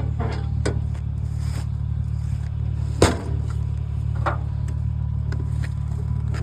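Vehicle engine idling with a steady low hum, while scrap is handled: a few light knocks and one loud sharp knock about three seconds in.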